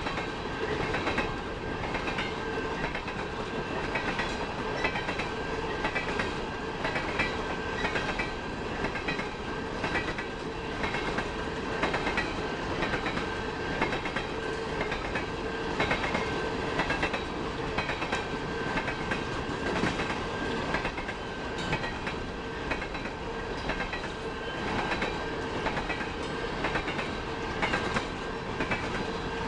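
Train cars rolling past, their wheels clicking over rail joints in a steady repeating rhythm, with steady thin tones from the wheels running underneath.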